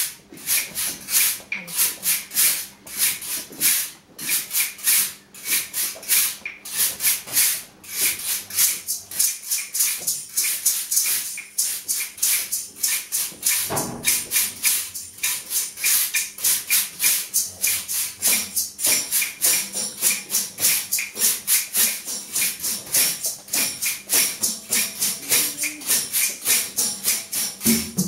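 A percussion ensemble plays a Latin-style piece. Small hand percussion keeps a fast, even pulse of about four to five strokes a second over pitched mallet instruments, with one low drum thump about halfway through.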